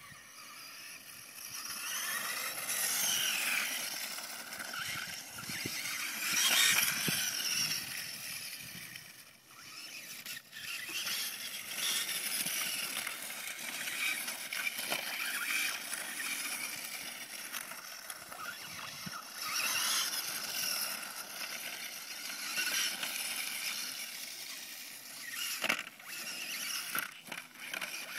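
Brushless electric motor of a Venom VMX 450 radio-controlled dirt bike whining, its pitch rising and falling again and again as the throttle is worked, loudest about six seconds in.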